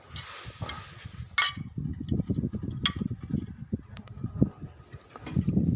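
Metal tools and engine parts clinking and knocking, with a few sharp clicks and handling noise, while a petrol generator is being taken apart.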